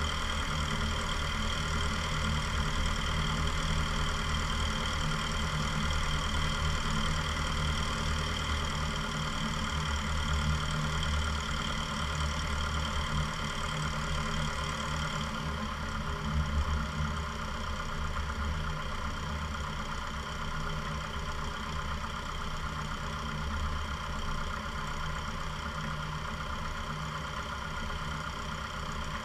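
Cessna 172 Skyhawk's piston engine and propeller droning steadily at approach power on final approach, with a slight drop in level a little past halfway.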